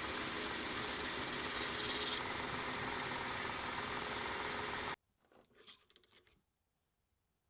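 Metal lathe turning a brass spool: steady machining noise with a fine rapid flutter. The high hiss drops away about two seconds in, and the sound cuts off suddenly near five seconds.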